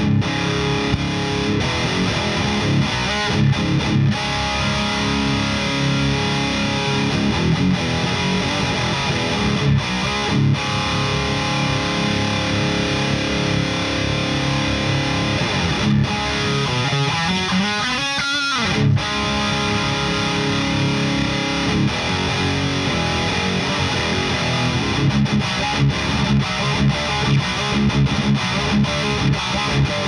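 Heavily distorted electric guitar riffing, played through a Victory Super Kraken amp head with a presence/resonance EQ pedal in its effects loop and miked in an isolation cabinet. A rising slide leads into a short break a little past halfway before the riffing picks up again.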